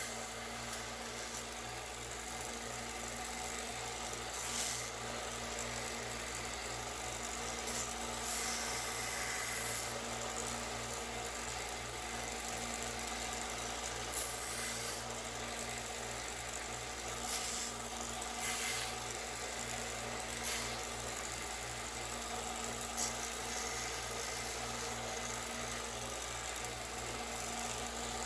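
Small benchtop belt sander running steadily with a motor hum, with a 3D-printed TPU plastic part pressed against the moving belt for sanding. Short, sharper rasps come now and then as the plastic bites into the belt.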